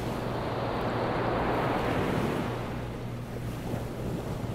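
Ocean surf: a wave washing in, swelling and then easing off, over a low steady hum.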